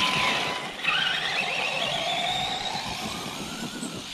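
Brushless electric motor of a Maverick Quantum Flux 1/10 RC truggy whining under throttle. The pitch dips at first, then climbs steadily from about a second in as the truggy accelerates, and the sound fades as it gets farther away.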